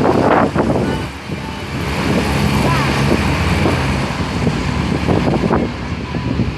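Griffon 12000TD passenger hovercraft coming in, a steady droning hum from its engines and propellers that is clearest in the middle, with wind buffeting the microphone.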